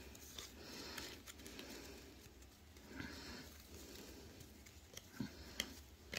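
Faint rustling of trading cards being handled and flipped through, with a few light clicks and taps near the end.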